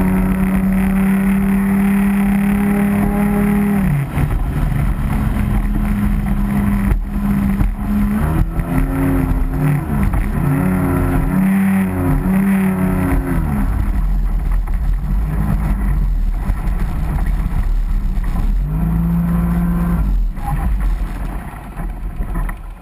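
Racing boat's engine running hard at high revs, heard close from on board. Its pitch dips and rises several times as the throttle is eased and reopened. Near the end it drops back and fades as the boat is throttled off.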